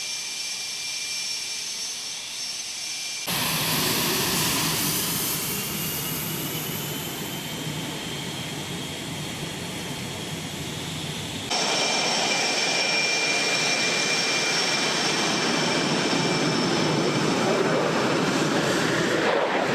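F/A-18 fighter jet engines running with a steady roar and a high whine. The sound changes abruptly about three seconds in and again about eleven seconds in, getting louder at each change.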